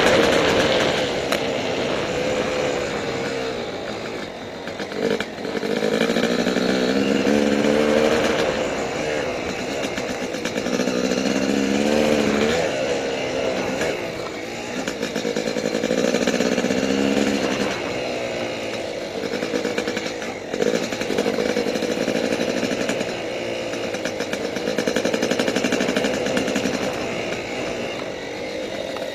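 Yamaha YZ250 two-stroke dirt bike engine under way, revving up and down with the throttle so its pitch keeps rising and falling, easing off briefly a few times. A few sharp knocks come from the bike over the trail.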